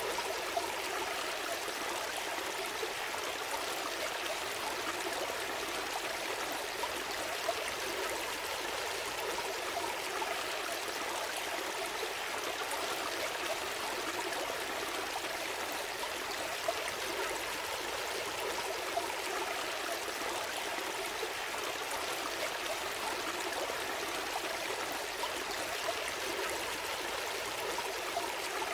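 Gentle stream flowing steadily, water babbling and trickling over rocks.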